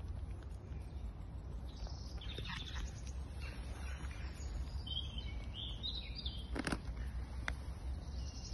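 Outdoor background of a steady low rumble with birds chirping, and a few sharp clicks, the loudest about two-thirds of the way in.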